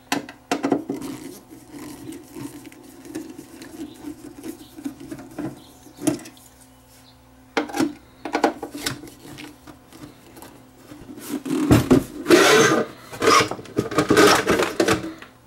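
Screws being worked out of a UPS's sheet-metal base plate with a screwdriver: scraping and rubbing with scattered clicks. Near the end comes the loudest part, the metal chassis and circuit board scraping as they slide out of the plastic case.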